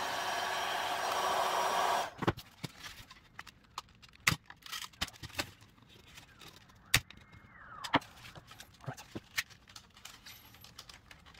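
A heat gun blowing steadily on the plastic dash facia, cutting off suddenly about two seconds in. It is followed by scattered sharp plastic clicks and knocks as the Honda Civic EK's centre air vent housing is worked loose from the facia.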